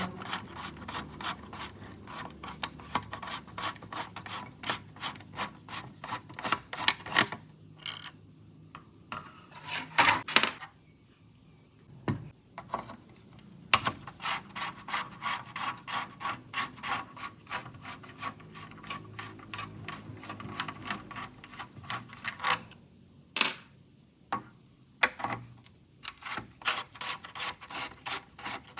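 Rapid back-and-forth scrubbing strokes on a dusty ceiling fan, several strokes a second. The scrubbing stops briefly twice.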